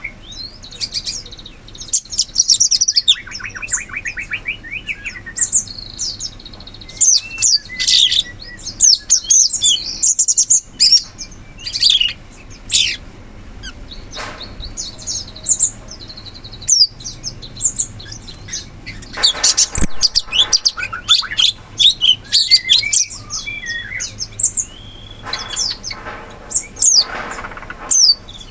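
Cucak cungkok songbird calling busily: a rapid run of sharp high chirps and short whistled phrases, broken by a few fast trills.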